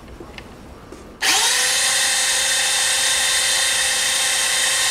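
Handheld electric drill with a universal step bit starting up about a second in, then running at a steady high whine as it enlarges a hole in an aluminum panel.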